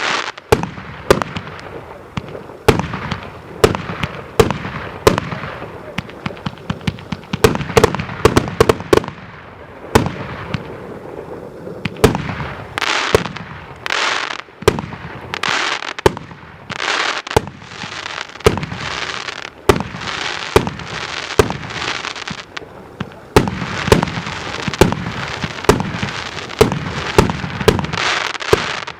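Multi-shot firework cake (battery of salutes) firing continuously: dozens of sharp bangs from launches and aerial bursts in quick succession, with hissing spells between them.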